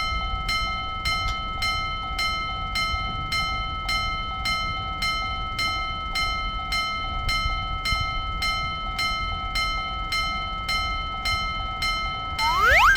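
Japanese railroad crossing warning bell ringing in a quick, even rhythm of about three strokes a second, the crossing alarm that sounds while the barriers are down.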